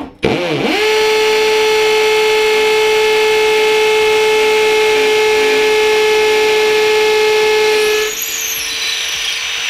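Ryobi R18PDBL-0 18V brushless hammer drill in hammer mode, boring into a clay brick. It spins up in the first second, then runs as a steady, loud, high buzz with many overtones. About eight seconds in it drops to a quieter, rougher sound before stopping.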